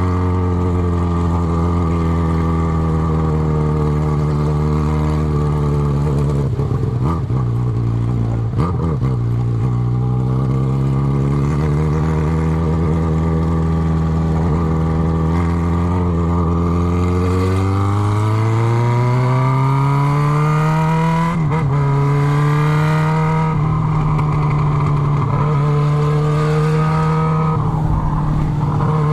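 Yamaha XJ6 inline-four engine under way, running on the open pipe with its exhaust silencer tip removed. The engine note holds steady and dips briefly twice early on. Then it climbs in pitch for several seconds as the bike accelerates, drops sharply at a gear change about three-quarters of the way through, and settles into a steady note.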